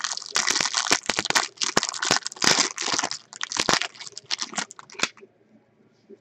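Trading-card pack wrapper being opened and handled: busy crinkling with sharp crackles, stopping about five seconds in.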